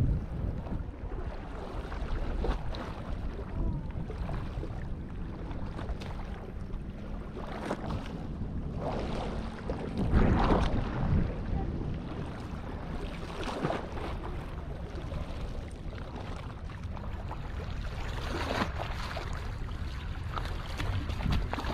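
Wind rumbling on the microphone over small waves lapping and washing against the rocks, with a louder wash about ten seconds in.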